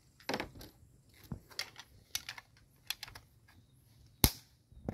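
Irregular clicks and taps from the plastic CO2 magazine of a Crosman AK-1 air rifle being handled, its two CO2 cartridges just fitted, with one sharper, louder click near the end.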